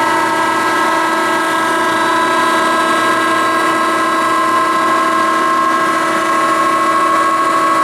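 Marvel V10A2 vertical band saw running with its blade speed being turned up: a steady, loud whine of several tones whose pitch rises slowly.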